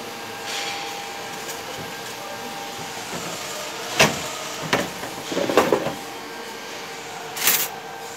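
Steady machine hum in a welding shop, with a few sharp knocks and a short run of clinks about halfway through as the aluminium pipe is handled, and a brief hiss near the end.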